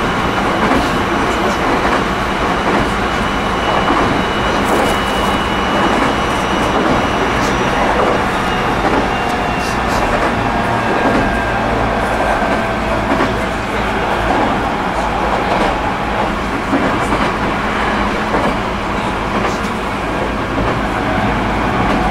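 Running sound inside the JR East E127-100 series electric car KuMoHa E127-105, which has a GTO-thyristor VVVF inverter, travelling between stations. A steady wheel-and-rail rumble with occasional clicks, the air conditioning running and passenger noise in the cabin, and a faint high whine slowly falling in pitch in the first half.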